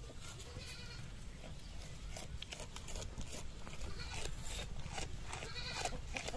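Goat milk squirting by hand into a steel pot in a steady run of short squirts, with goats bleating.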